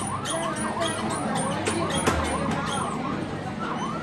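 Fire-engine kiddie ride playing its electronic siren sound effect: a fast yelping siren that rises and falls in pitch several times a second.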